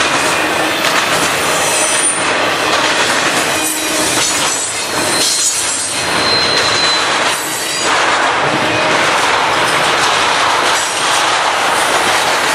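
Intermodal freight cars rolling past close by: a loud, steady rumble and rattle of steel wheels on the rails, with two brief high wheel squeals, one about two seconds in and one about halfway through.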